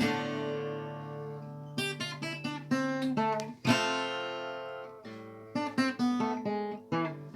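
Acoustic guitar playing alone between sung verses: a chord rings out and fades, then a run of picked notes and strummed chords, each left to ring.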